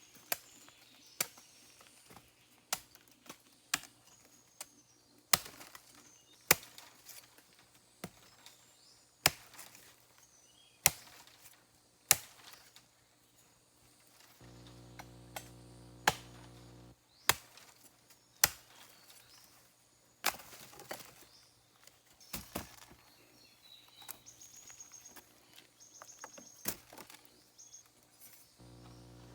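Wood being chopped with a blade: sharp, irregular strokes about one every second or so, some much louder than others.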